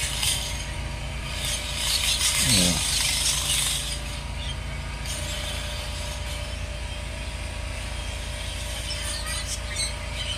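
Steady low rumble of outdoor traffic and machinery with a faint steady hum, swelling into a louder rushing noise about two to four seconds in, with a brief falling tone in the middle of it.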